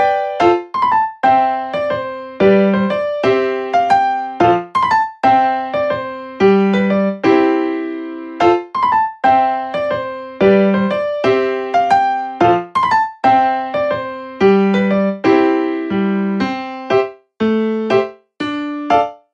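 Background music: a keyboard tune played as a run of short, separate piano notes.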